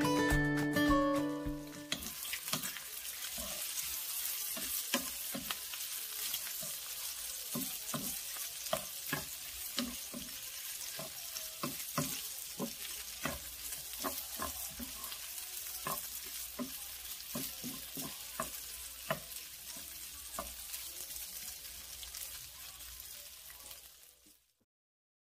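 Marinated pork pieces sizzling in a non-stick frying pan, a steady high hiss with frequent light clicks and scrapes as the meat is stirred. Brief intro music plays at the start, and the sizzling cuts off suddenly near the end.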